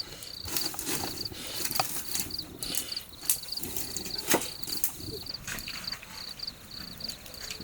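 Cricket chirping in a steady rhythm of short high pulses, about three a second, with a few scattered knocks or clicks, the sharpest about four seconds in.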